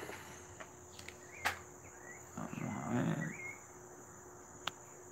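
Steady high-pitched chirring of crickets. A sharp click comes about a second and a half in and another near the end, with a short low murmur of a man's voice around the middle.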